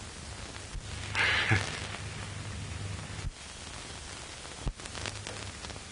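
Steady hiss and low hum of a 1930s film soundtrack, broken by a few sharp clicks and pops. About a second in comes a brief rustle ending in a dull thump.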